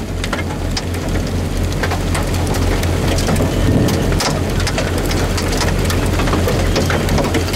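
Heavy rain and hail pelting down: a dense hiss dotted with many sharp ticks of stones striking. A steady low rumble runs underneath.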